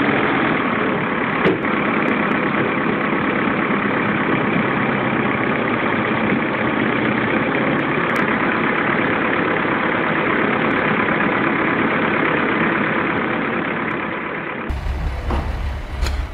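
A heavy vehicle's engine running steadily. Near the end the sound cuts abruptly to a different engine with a deep low rumble.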